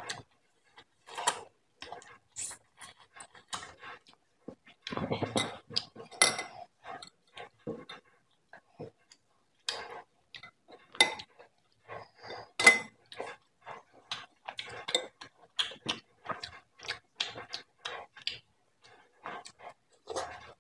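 Close-up wet eating sounds: lips smacking and chewing on soft beef trotter meat, made up of many short sharp clicks. Fingers pick through the curry in a ceramic bowl, with a few light clinks against it, the loudest about two-thirds of the way in.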